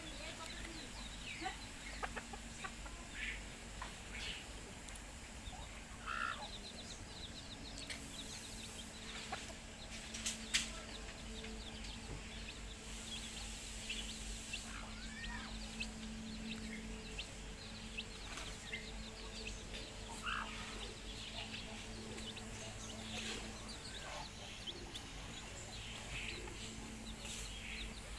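Baby chicks peeping: many short, high cheeps overlapping continuously, with a few louder calls among them. A single sharp click about ten seconds in.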